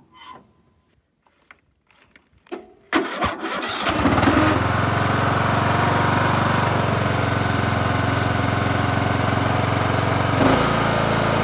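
A John Deere LA110 riding mower's engine is cranked about three seconds in, catches within a second and settles into steady running, with a brief change in its note near the end as the throttle lever is moved. It may still be running a little bit high, because the automatic choke's worn return spring is only held by a temporary spring fix.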